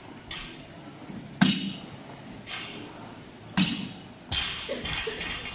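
Concept2 air rower's flywheel whooshing with each stroke, about once a second. Three sharp knocks or thuds land in between, the loudest about one and a half seconds in and another near three and a half seconds.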